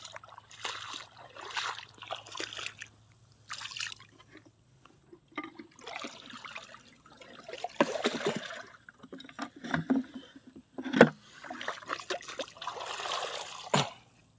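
Shallow floodwater sloshing and trickling in irregular swishes as a set fishing line is handled and pulled up, with a few sharp knocks near the end.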